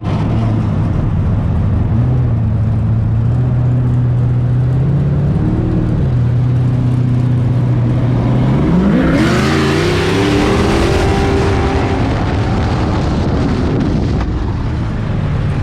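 Chevrolet muscle car V8 idling with a steady low rumble and a short throttle blip about five seconds in, then revved hard about nine seconds in as the car accelerates away, the engine note climbing in pitch and then fading out near the end.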